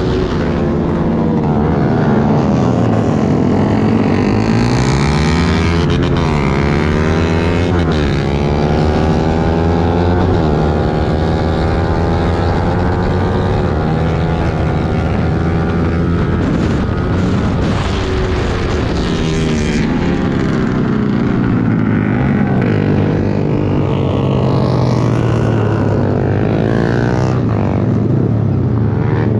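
Yamaha R15 V3's single-cylinder engine heard from on board, revving up and dropping back over and over as the bike accelerates and slows through the course.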